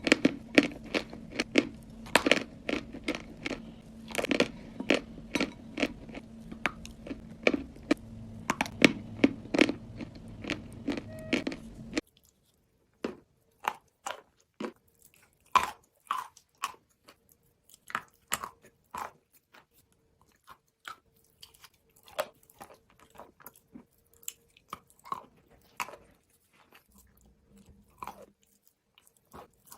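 A person chewing crunchy food close to the microphone: an uneven run of sharp, loud crunches, about one or two a second, going on throughout. A low steady hum sits under the first twelve seconds and stops abruptly.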